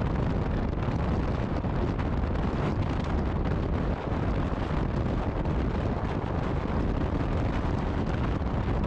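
Steady wind buffeting the microphone on a moving motorcycle taxi, with the motorcycle's engine running beneath it.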